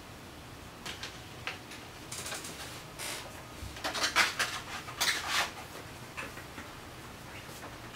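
Small objects being handled on a desk: a run of light clicks, taps and rustles, busiest and loudest between about four and five and a half seconds in.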